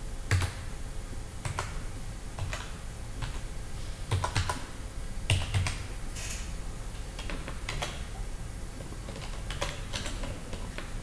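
Typing on a computer keyboard: scattered, irregular keystrokes.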